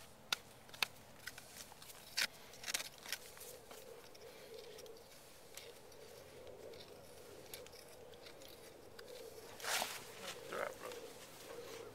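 Farrier working on a horse's raised hoof, with a few sharp clicks and scrapes in the first three seconds. A louder rush of noise comes about ten seconds in.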